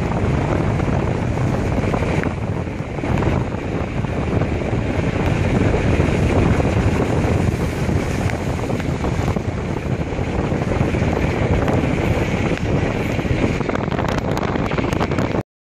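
Wind buffeting the microphone of a moving car, over the car's running and tyre noise on a wet road. The sound cuts off abruptly near the end.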